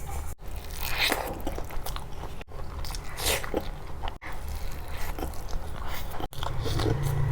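Close-miked eating: biting and chewing food with crunches, in short clips that cut off abruptly about every two seconds.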